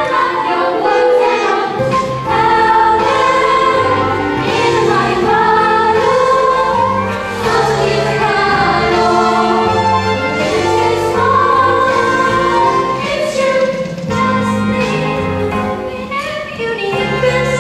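A choir or ensemble singing a musical-theatre number with instrumental accompaniment, sustained sung lines over a steady bass.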